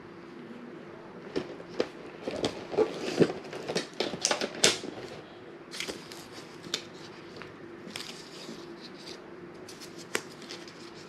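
Plastic packaging rustling and crinkling with scattered clicks and taps as a plastic-wrapped action figure is handled and lifted out of its moulded plastic tray. The handling is busiest in the first half, with a single sharp click near the end.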